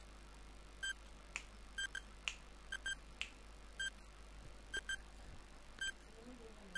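Countdown timer sound effect beeping quietly about once a second with short, high beeps, a few of them doubled, and a few faint clicks in between.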